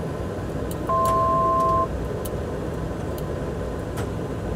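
Steady jet cockpit noise, with a two-note electronic chime lasting about a second, about a second in: the avionics altitude alert, sounding as the climb nears the selected level-off altitude.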